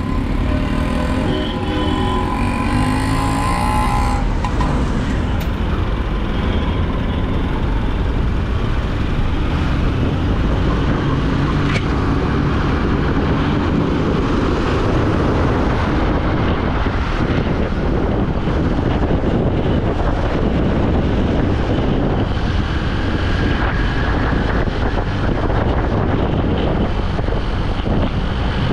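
Commuter motorcycle riding through city traffic, heard from a camera on the rider: a steady rush of wind and road noise over the bike's engine.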